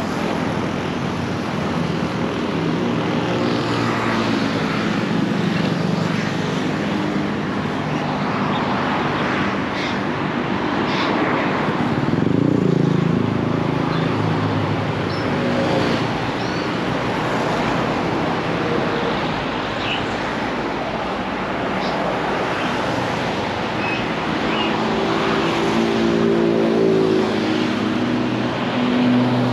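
Road traffic passing close by on a busy multi-lane road: cars, pickup trucks and motorbikes go by one after another, their engine and tyre noise swelling and fading as each passes, loudest about twelve seconds in and again near the end.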